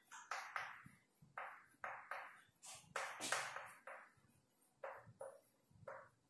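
Chalk writing on a chalkboard: an irregular run of short taps and scratches, two or three strokes a second, as letters are written.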